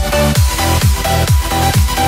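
Electronic dance music with a steady kick drum about twice a second under held synth tones.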